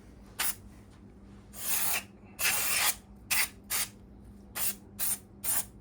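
Aerosol brake cleaner sprayed in a run of hissing bursts: a short squirt, two longer half-second sprays about two seconds in, then five quick short squirts.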